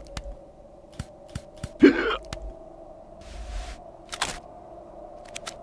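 Sparse cartoon sound effects: scattered small clicks and ticks, a short grunt-like vocal sound about two seconds in, and a brief hiss past the middle, over a faint steady hum.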